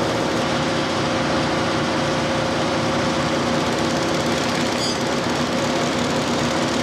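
An engine running steadily at a constant speed, a continuous hum that does not change.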